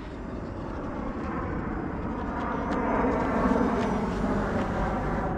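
A large airliner flying overhead: a low, steady rumble that slowly grows louder.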